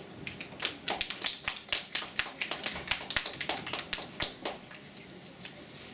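A small audience applauding: separate hand claps, irregular and fairly dense, for about four seconds, thinning out and stopping near the end.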